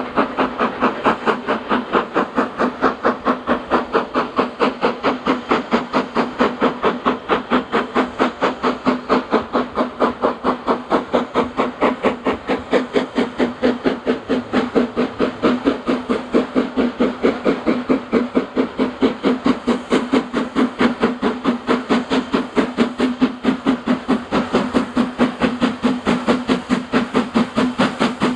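BR Standard 4MT 4-6-0 steam locomotive working hard with a train, its chimney exhaust beating in an even rhythm of about four beats a second, with steam hiss.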